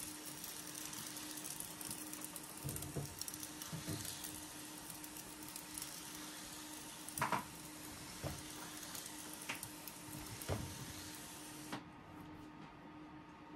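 Hand spray bottle misting water onto seed-starting soil: a steady hiss of spray that stops about twelve seconds in, with a few light knocks from handling.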